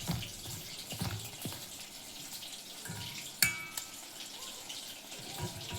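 Chicken pieces sizzling steadily in hot oil as they deep-fry, with a few small clicks and one ringing clink about three and a half seconds in.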